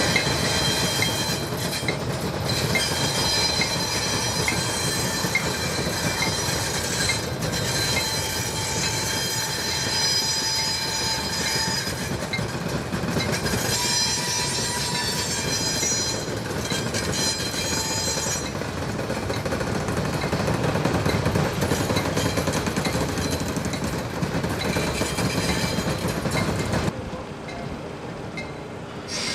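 Freight cars rolling slowly behind an ALCo S1 switcher, steel wheels squealing in several high ringing tones against the rail over the low rumble of the locomotive's diesel engine. The sound drops abruptly near the end.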